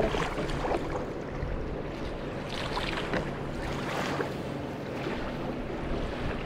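Open-air noise of wind and water lapping around a small boat on a lake, with a low steady hum and a few soft knocks.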